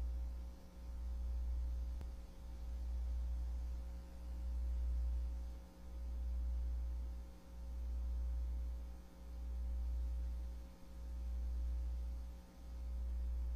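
A low, deep hum that swells and fades evenly about every second and a half, over faint steady higher tones.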